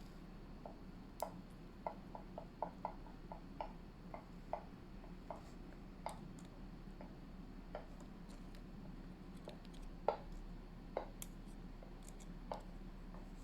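Scattered light clicks and taps, irregularly spaced, over a steady low electrical hum.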